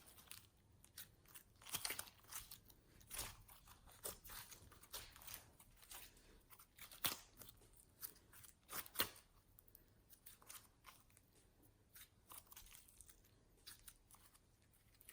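Clear slime being squeezed and stretched by hand, giving faint sticky clicks and crackles at irregular intervals, which thin out after about ten seconds.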